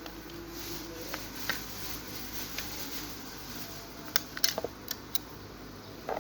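Small sharp clicks and taps from handling a smartphone's parts and tools during disassembly: a few scattered ones, then a quick cluster about four to five seconds in, over a steady low hum.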